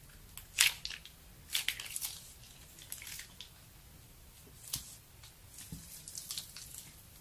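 Red liquid squeezed from a plastic piping bag into a glass dish of blue liquid, giving a handful of short wet drips and splats with a little crackle of the bag, the sharpest about half a second in.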